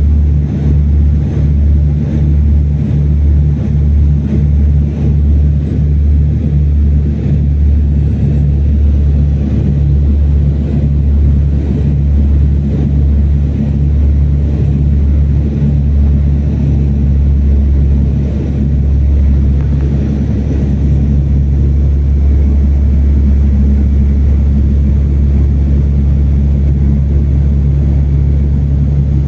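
Propeller airliner's engines droning inside the cabin in flight: a loud, steady low hum with a pulsing beat that evens out about two-thirds of the way through.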